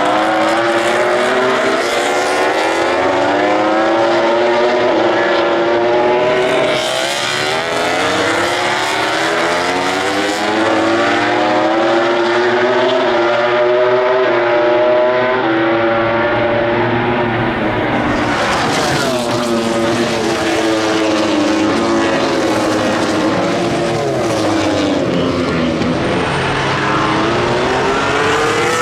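MotoGP race motorcycle engines at high revs going past, several bikes overlapping, their pitch repeatedly rising and falling as they accelerate, shift gears and brake.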